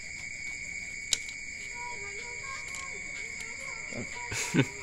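Steady high-pitched chorus of night crickets, with a single sharp click about a second in and a brief voice near the end.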